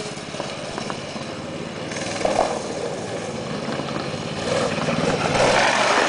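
Homemade go-kart's 6.5 HP Loncin single-cylinder four-stroke engine running as the kart drives across grass, growing louder near the end as it passes close by.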